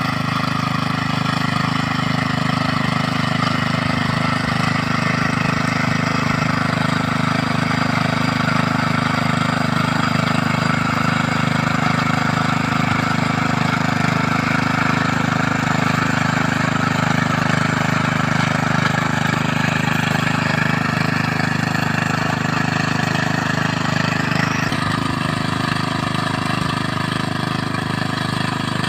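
Small engine of a mini rice-paddy plowing machine running steadily at an even speed.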